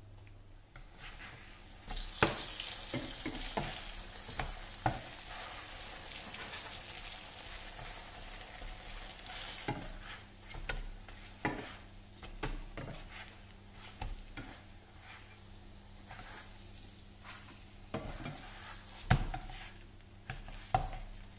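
Roti canai frying in oil in a non-stick pan: a steady soft sizzle that thickens about two seconds in, with scattered knocks and scrapes of the spatula against the pan as the flatbreads are turned.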